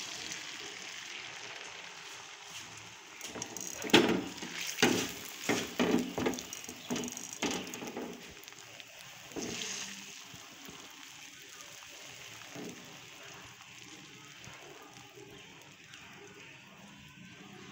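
Beaten egg sizzling in hot oil in a non-stick frying pan, a steady soft hiss. From about four seconds in comes a run of knocks and clatters as the pan is tilted and shifted on the gas stove's grate to spread the egg, and then the sizzle goes on more quietly.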